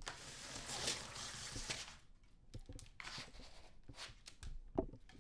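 Window roller blind being worked by its pull cord: a continuous rolling rustle for about two seconds, then a string of scattered clicks and knocks, with a louder knock near the end.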